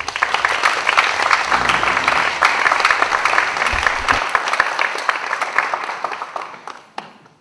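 Audience applauding, a dense patter of many hands that starts at once, holds steady, then thins and dies away near the end.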